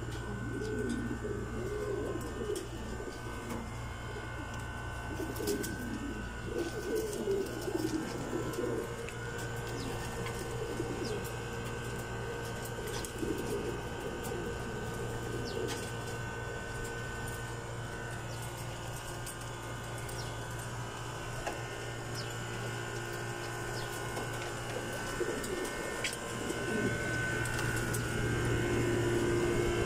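Racing pigeons cooing in their wire loft cages, the coos thickest in the first several seconds and coming off and on after that, over a steady low hum.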